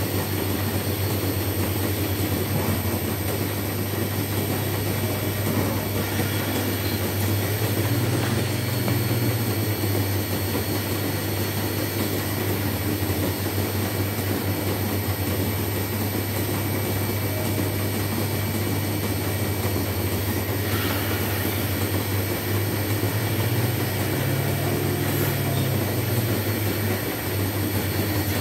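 Dairy milking plant running steadily: a continuous low machine hum with a faint high whine over it.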